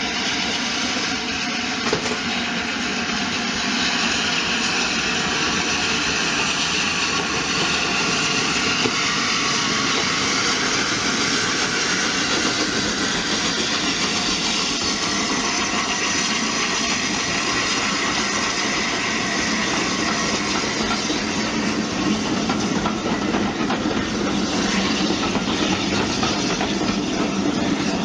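LNER Peppercorn A1 steam locomotive 60163 Tornado running with its train, with steam hiss and the clatter of wheels on the rails, growing a little louder toward the end.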